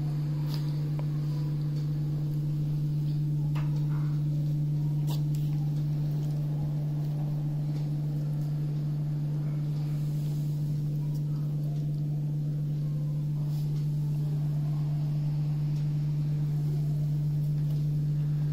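A steady low hum, one unchanging tone with a fainter tone above it, with a few faint clicks.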